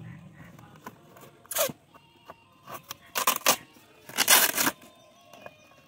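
Packing tape being ripped and scraped off a cardboard box, in three short tearing bursts, the last one the longest.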